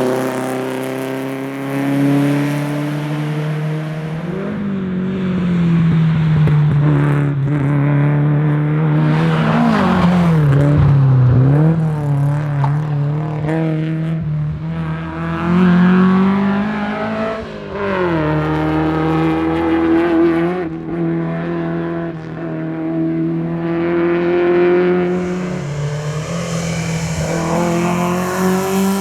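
Volvo 122S rally car's four-cylinder engine running hard at fairly steady revs. The revs dip and climb again around ten and seventeen seconds in, and rise again near the end.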